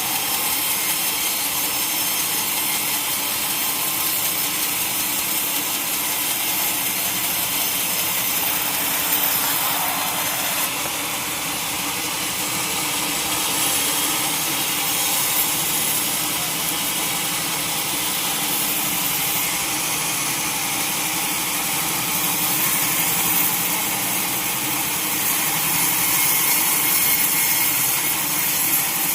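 Sawmill saw running steadily through a large mahogany log: a continuous high cutting hiss over the machine's steady hum.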